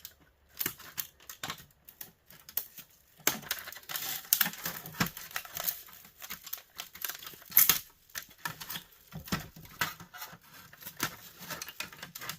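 Hands working apart a plastic space heater's housing and insulated wiring: irregular clicks and knocks, with a stretch of crinkling and rustling in the middle and one sharp snap near it.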